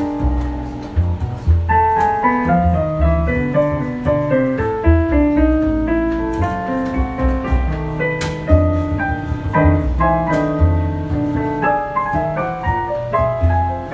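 Jazz keyboard playing an instrumental solo line of quick, changing notes, with a bass playing low notes underneath.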